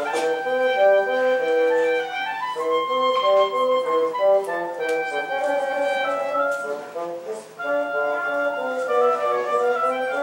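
Double-reed duet: a bassoon plays a lower part under a higher double-reed instrument, both moving through short, separate notes.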